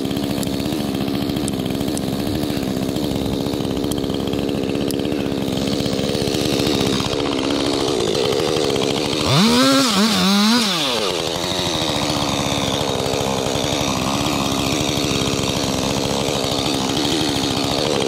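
Two-stroke chainsaw running at high revs throughout, its pitch wavering slightly. About nine to eleven seconds in it gets louder and its pitch dips and climbs back.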